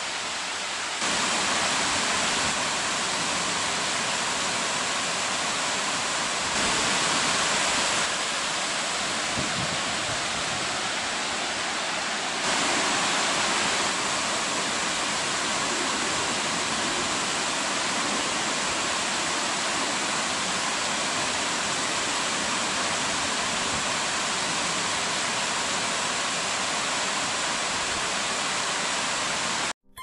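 Steady rush of flowing water from the small cascade of Nomizo Falls and the shallow stream below it, with a few sudden steps in loudness; it cuts off abruptly near the end.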